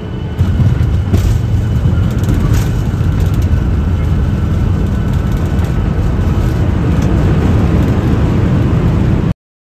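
Airliner cabin noise while taxiing on the ground: a steady, loud low rumble from the engines and wheels with a faint high whine over it. It steps up about half a second in and cuts off suddenly near the end.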